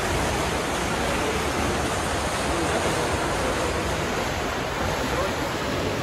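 Steady rushing noise at a swimming race: water churned by swimmers, mixed with faint, indistinct crowd voices.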